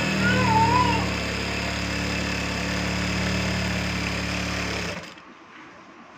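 Single-needle industrial sewing machine running steadily at speed, stitching a seam through cloth, then stopping abruptly about five seconds in.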